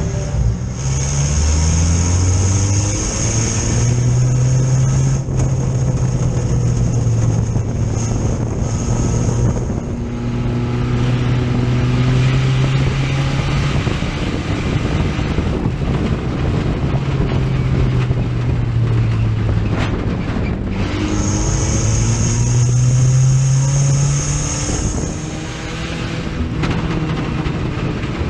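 A USRA Tuner race car's four-cylinder engine heard from inside the cockpit under racing load. The revs climb and hold along the straights and fall back when the driver lifts for the corners, several times over. A steady rushing noise sits underneath, and a thin high whine comes in for a long stretch near the start and again about three-quarters through.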